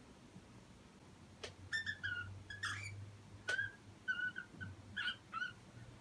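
Cockatiel chirping a string of short whistled notes, starting about a second and a half in. Two sharp clicks come among the notes.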